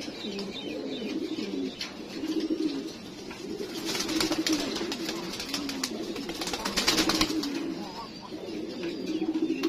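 Domestic pigeons cooing over and over, with two flurries of wing fluttering, about four seconds in and again around seven seconds, as a white King pigeon pair mates.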